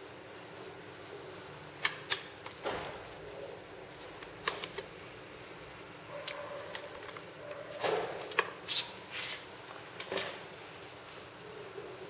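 Scattered sharp clicks and taps as a USB cable's plastic plugs and a phone are handled on a glass-topped desk, with short bursts of handling noise. The two loudest clicks come about two seconds in, and a cluster of clicks and rustles follows between about eight and ten seconds.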